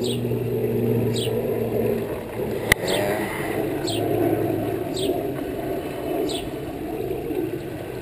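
Water of a small pondless garden waterfall running steadily down over rocks and pebbles. A single sharp click comes a little under three seconds in.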